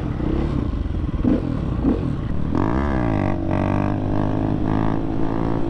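Motorcycle engine running on the road. About two and a half seconds in, its revs rise and drop quickly, then it holds a steady drone.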